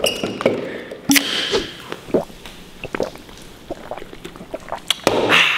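A man gulping soda straight from a can in a series of short swallows, ending with a loud, breathy exhale about five seconds in.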